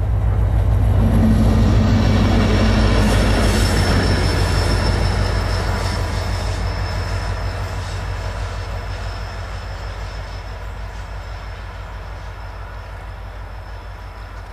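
Renfe class 333.3 diesel locomotive running light past on a curve: a loud low engine drone that peaks about two seconds in and then fades steadily as it draws away, with a thin high wheel squeal on the curve.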